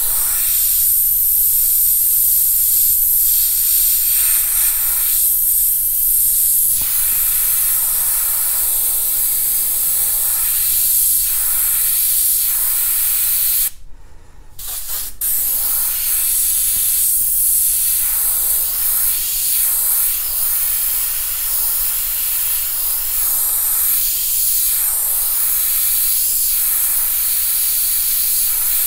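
Airbrush spraying paint onto a T-shirt: a steady high hiss of compressed air through the nozzle. It breaks off for about a second roughly halfway through, then resumes.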